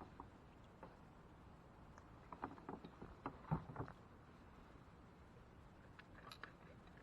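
Light knocks and clicks on a kayak: a cluster of small taps and clatters in the middle, one sharper knock among them, and a few more near the end.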